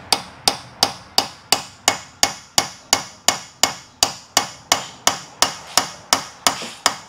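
Steady series of sharp metal-on-metal blows, about three a second, each ringing briefly. They come from working a stuck part on a tow truck's hydraulic cylinder to free its retaining wire.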